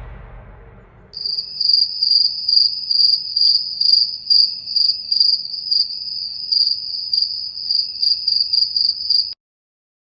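Crickets chirping: a steady high trill with a pulsing beat about twice a second. It starts about a second in, after the fading tail of a cinematic whoosh effect, and stops abruptly near the end.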